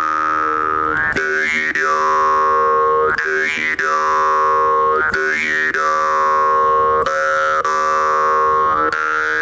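Jaw harp (vargan) played over a steady drone, its overtone melody sliding up to a high note and back down again several times, about every two seconds.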